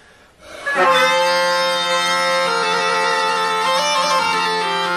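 Bagpipe playing, starting about a second in: a steady drone under a chanter melody whose notes step up and down.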